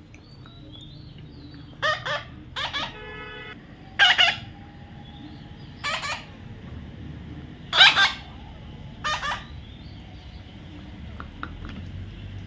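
Parrot squawking: about seven loud, harsh screeches spaced a second or two apart, some in quick pairs. One short, more tuneful call comes between them.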